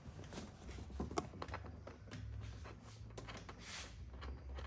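Scattered light clicks and taps of small metal hardware as a bolt and nut are fitted to a wire basket's bracket, over a low steady hum.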